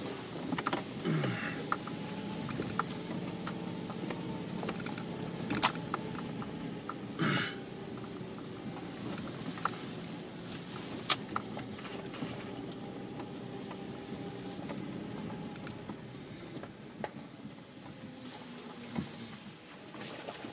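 2010 Jeep Wrangler Unlimited Sahara's 3.8-litre V6 running steadily at low trail speed, heard from inside the cabin. A few sharp knocks and rattles come from the Jeep jolting over the rough dirt track.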